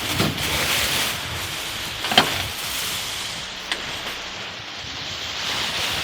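Wind on the microphone and rushing water as the sailboat sails, with a sharp snap about two seconds in and a lighter knock shortly after.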